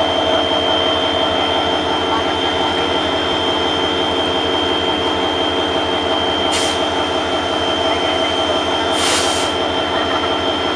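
CC 205 diesel-electric locomotive's engine running steadily with a constant drone and tones. Two short hisses cut in, about six and a half and nine seconds in.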